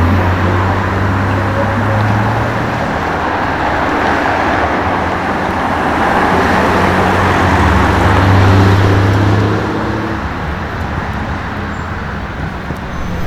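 BMW M5 F90's twin-turbo V8 running with road noise. The sound builds to its loudest about eight seconds in, then fades, as the car passes.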